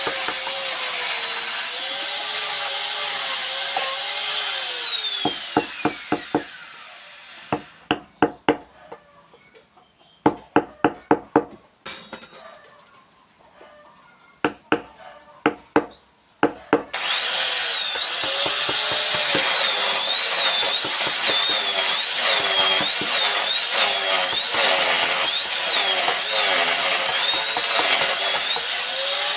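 High-pitched electric rotary tool cutting wood, its whine wavering up and down as it bites and eases off. About five seconds in it winds down. For about ten seconds there are clusters of quick, sharp knocks, then the tool starts up again and runs on, still wavering in pitch.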